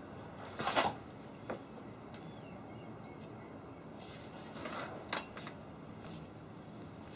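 Katana handling and cutting: two brief swishes, each followed by a sharp click, with a few smaller clicks after the second, as the blade is swung and returned to its scabbard.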